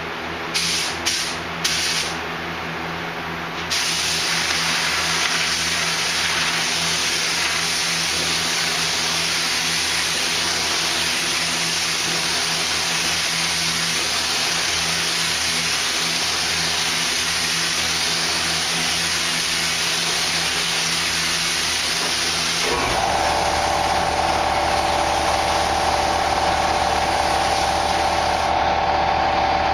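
Paint spray gun: three short trigger blips, then a long steady hiss of air and atomised paint as a coat goes on. About three-quarters of the way through, a motor starts up with a steady whine and low hum, under the spraying.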